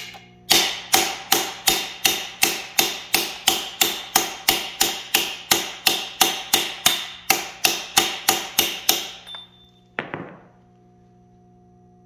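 Steady, rapid hammer blows, about three a second, on a metal driver tube, each with a short metallic ring, driving the crankshaft timing gear down over its key onto the snout of a Big Block Chevy 496 stroker to seat it fully. The blows stop about nine seconds in, and one last single blow follows a second later.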